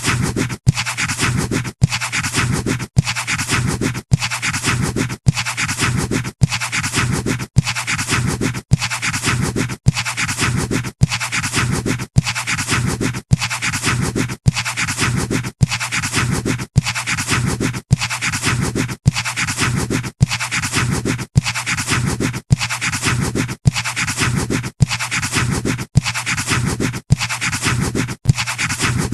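Pencil scratching on paper in drawing strokes. The strokes repeat evenly, each about two-thirds of a second long, with a brief silent break between them.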